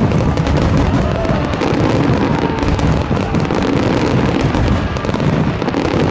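Large aerial fireworks barrage: many shells bursting and crackling in rapid, unbroken succession, with music playing underneath.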